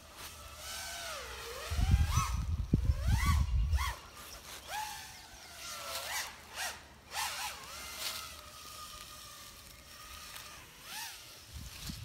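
Quadcopter drone's motors whining, the pitch sweeping up and down repeatedly as it throttles and manoeuvres in flight. A loud low rumble on the microphone between about two and four seconds in.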